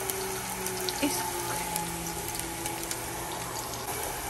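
Sliced onions sizzling steadily in hot oil in a pot as they are browned, with a light click about a second in.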